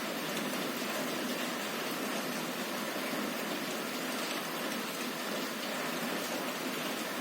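Heavy rain falling steadily on a window: a dense, even hiss of drops with no breaks.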